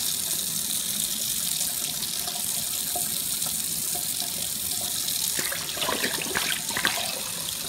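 Kitchen faucet running steadily into a stainless steel sink. From about five and a half to seven seconds in, there is splashing as a glass bottle is dipped into a cooler of soapy water.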